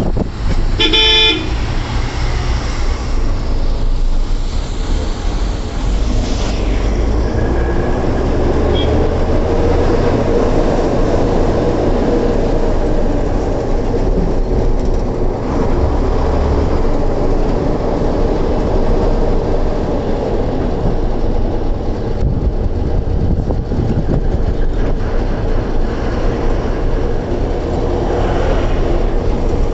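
Truck engine and road noise running steadily inside the moving truck's cab, with one short horn blast about a second in.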